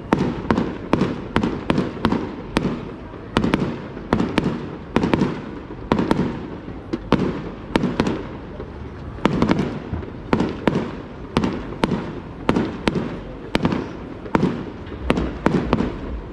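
Fireworks display: shells bursting in rapid, irregular succession, about two to three sharp bangs a second, each trailing off in an echo.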